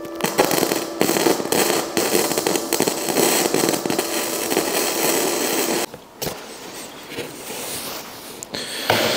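Flux-core MIG welder arc crackling and spitting as it welds thin steel mesh, cutting out about six seconds in.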